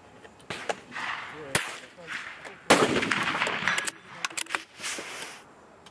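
A single shot from a CZ 452 .22 rimfire bolt-action rifle: a sharp crack a little under three seconds in, with a short noisy tail. About a second and a half later come quick metallic clicks as the bolt is worked and the spent case is ejected.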